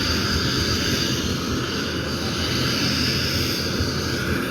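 A helicopter running steadily, its rotor and turbine engine giving a loud, even rush of noise.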